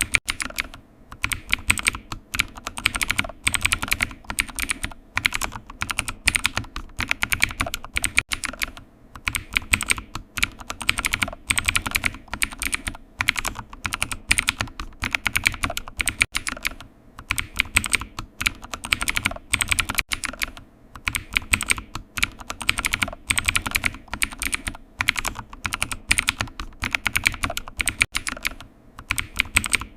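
Continuous typing on a computer keyboard: rapid key clicks in runs of bursts, with brief pauses between them.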